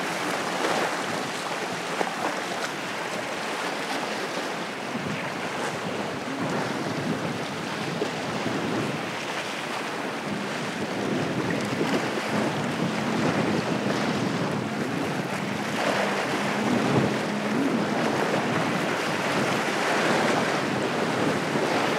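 Wind buffeting the microphone over the wash of waves, with a faint steady low engine hum from a passing trawler-style motor yacht through the middle stretch.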